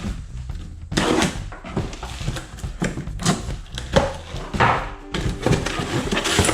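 Box and packaging being rummaged through by hand while parts are taken out: an irregular series of knocks, thuds and rustles.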